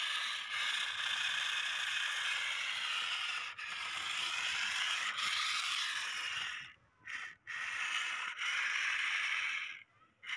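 Small electric motor and plastic gearbox of a wired-remote toy front loader whirring as it drives over concrete. It cuts out about two-thirds of the way through, gives two short bursts, then runs again for a couple of seconds.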